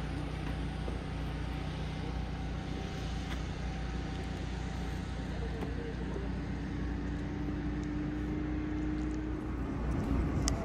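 Steady outdoor background noise: a low rumble with a faint steady hum, and a fainter steady tone for a few seconds past the middle.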